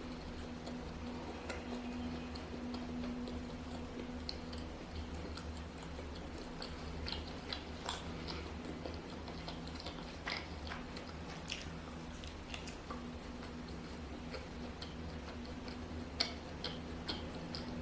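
Close-miked chewing of a chewy, springy cheese ball: scattered soft wet mouth clicks and smacks, over a faint steady hum.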